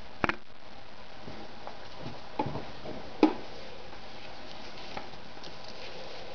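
Thick folded denim being handled, with a few light knocks and rustles over a steady hiss. The sharpest knock comes about three seconds in.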